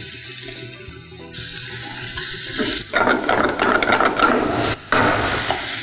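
Water poured into a hot pan of frying onion-tomato masala, hissing and sizzling, then the mixture stirred with a wooden spatula; the sizzle and stirring grow louder and crackly about three seconds in.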